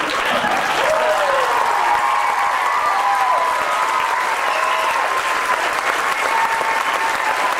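Audience applauding, with cheering voices rising and falling over the clapping.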